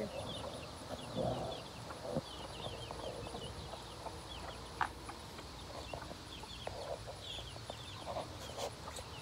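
Baby chicks peeping: many short, high cheeps, each falling in pitch, repeated throughout, with a hen's low cluck about a second in.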